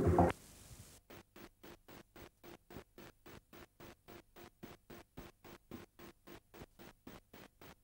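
A moment of channel-ident music cut off abruptly, then a faint, regular pulsing hiss about four times a second: the noise of an analogue videotape recording losing its signal as the recorded programme ends.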